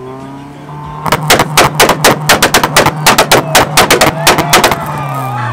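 Modified Honda four-cylinder engine revved up hard, then held high while the exhaust fires a rapid, loud string of cracking pops and bangs, about five or six a second for nearly four seconds. The revs then drop away near the end.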